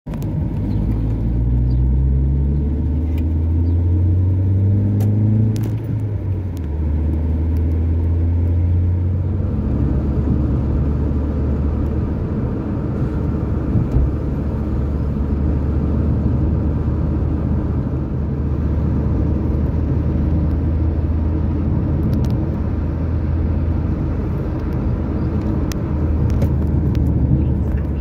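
Car engine and road rumble heard from the moving car: the engine pitch rises over the first few seconds, drops about six seconds in, then holds at a steady cruising drone.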